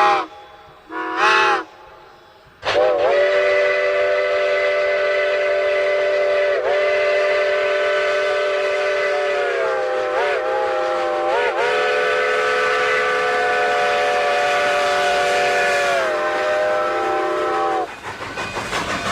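A steam locomotive's multi-note chime whistle. It gives two short toots, then one long blast of about fifteen seconds whose pitch wavers briefly a few times before it stops and fades.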